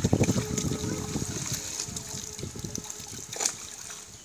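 Pond water splashing and pouring as fish are scooped out of a drawn-in net with plastic buckets and baskets, water streaming back out of them. It is loudest about the first second and a half, with one sharper splash a little past three seconds in.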